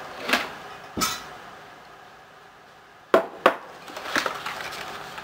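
Kitchen items being set down and handled on a countertop, among them a glass bowl. There are a handful of separate knocks, the sharpest two close together about three seconds in.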